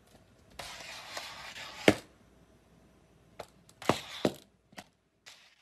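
A handful of sharp knocks, the loudest about two seconds in and a quick cluster of them near the end, over a light hiss of noise during the first two seconds.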